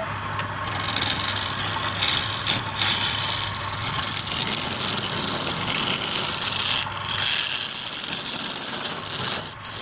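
Wood lathe turning a large wooden blank while a hand-held flat scraper cuts its end, a steady rasping scrape with a low hum of the lathe beneath. The hum fades about seven seconds in, and the cut breaks off briefly near the end.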